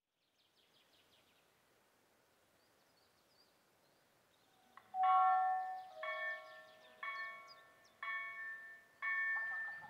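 Railway level crossing warning bell starting to ring about five seconds in, one ringing strike about every second, each fading before the next: the crossing's warning signals have switched on for an approaching train.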